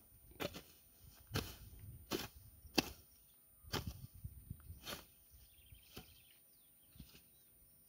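Hand hoe chopping into soil and weeds: about nine sharp strikes, roughly one a second, as the weeds between the crop rows are cut out.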